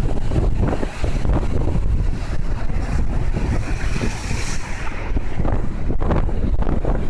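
Stormy sea surf churning against the shore while strong wind buffets the phone's microphone with a deep, steady rumble. A louder hiss swells about halfway through.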